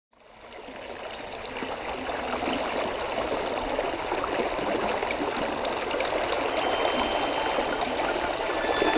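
Rushing water of a river waterfall, fading in over the first couple of seconds and then steady.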